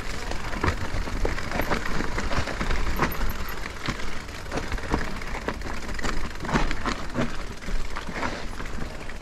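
Electric mountain bike ridden over rough, wet trail: irregular knocks and rattles from the bike over a steady low rumble.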